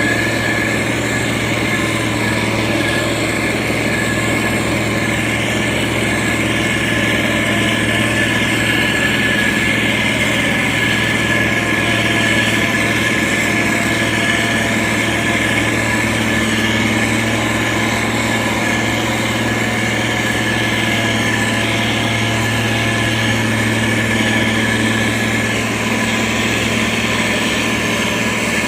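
Diesel engine of heavy road-building machinery running steadily at an even speed, with a thin high whine held over it.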